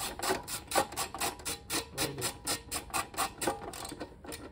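Ratchet wrench clicking rapidly and evenly, several clicks a second, as it is worked on a bolt of a Yamaha YBR 125 motorcycle.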